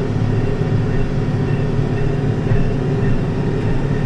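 Tractor engine running steadily under load while pulling a working hay baler.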